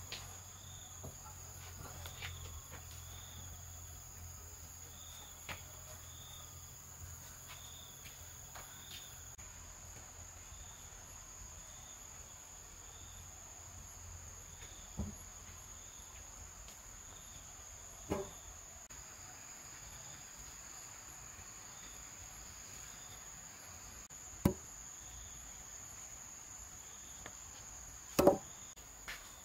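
Insects keep up a steady high-pitched drone, with a fainter chirp pulsing about once a second. Solid wooden beams knock down four times, spaced several seconds apart, the last two the loudest, as each is set down on concrete or against the other beams.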